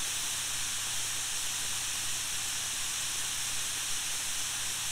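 Jet Central Rabbit SP 100-newton model turbine engine running at about 125,000 to 130,000 RPM, a steady hiss. The engine holds fairly stable here rather than surging.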